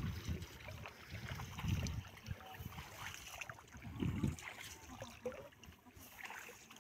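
Footsteps wading through shallow muddy water, each step splashing, with the heaviest splashes about two seconds in and again about four seconds in.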